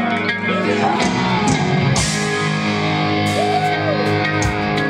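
Heavy metal band playing live: distorted electric guitars over bass and drums, with bending, gliding guitar notes and a few cymbal crashes.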